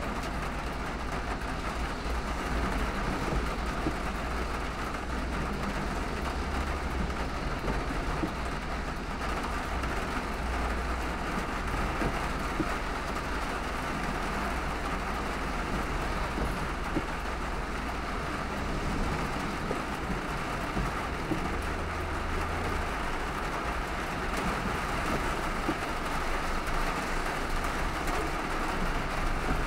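Steady noise of a car driving through heavy rain: rain on the car and tyres on the wet road, with a low rumble that swells briefly twice.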